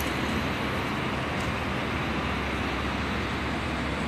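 Steady road traffic noise: a constant low rumble and hiss with no distinct events.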